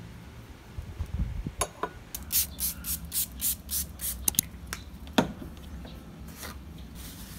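A small pump spray bottle misting the desktop: a quick run of about eight short sprays, a few per second, then a single knock.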